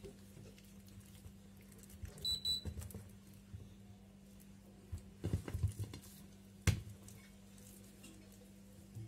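Hands working oil-coated malawi dough, with soft squishing and slapping sounds in two clusters and a sharp knock near the seven-second mark. A brief high beep sounds about two seconds in, over a steady low hum.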